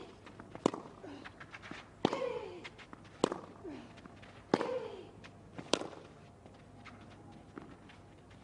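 Tennis rally: five racket-on-ball strikes about 1.2 s apart, several of them followed by a player's short grunt that falls in pitch. The hitting stops about six seconds in.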